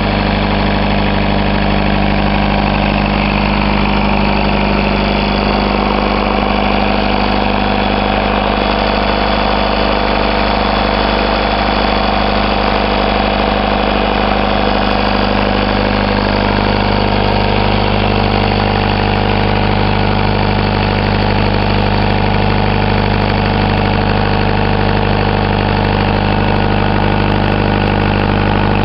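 Peugeot diesel engine idling steadily, exhausting through a Ford silencer, with the Broomwade compressor drive not yet engaged.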